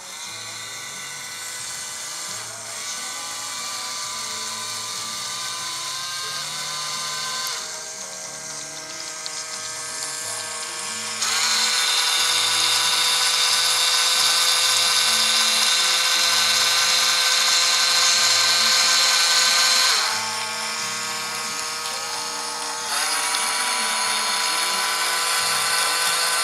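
Two small electric motors (knock-off Lego L motors) whining steadily as they drive a toy RC boat's paddle wheels, with the paddles splashing water. The sound jumps much louder about eleven seconds in, drops back near twenty seconds and rises again a few seconds later.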